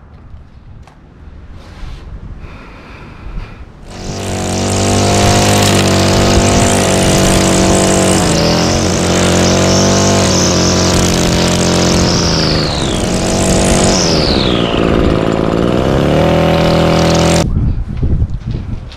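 Gas-powered string trimmer engine that comes on about four seconds in and runs at high speed, easing off and revving back up past the middle, then shuts off about a second and a half before the end.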